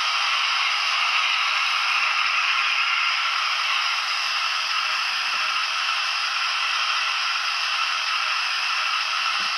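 Steady steam hiss from the Youchoos sound decoder in a Dapol OO-gauge Wainwright SECR D-class model locomotive, played through its small onboard speaker, so it sounds thin with no low end.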